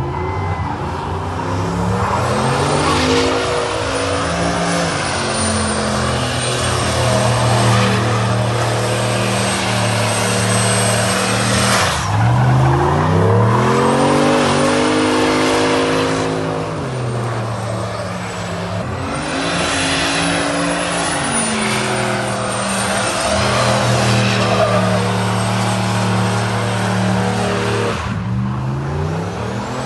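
A truck's engine held at high revs during a burnout, its spinning rear tyres hissing and squealing on the pavement. The revs drop twice, about twelve and eighteen seconds in, and climb back each time. A high whine rises and falls with the engine.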